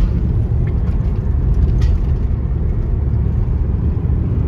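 Steady low rumble of a moving car's road and wind noise, heard from inside the cabin.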